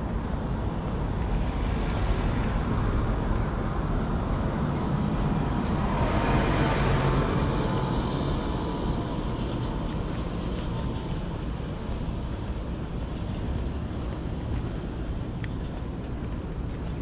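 A vehicle passing by: its noise swells to a peak about six or seven seconds in, then fades back into steady traffic noise.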